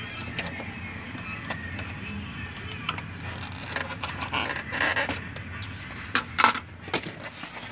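Scattered clicks and knocks of a screwdriver and hands working at the plastic housing of a Brother inkjet printer being taken apart, with a brief scraping rustle about five seconds in and a couple of louder knocks near the end, over a steady low hum.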